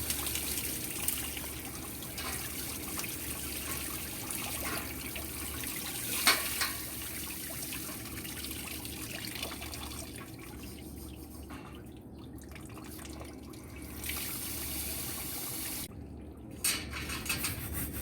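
Water running from a tap while barbecue grill grates are washed, with a sharp knock about six seconds in. The flow stops briefly near the end.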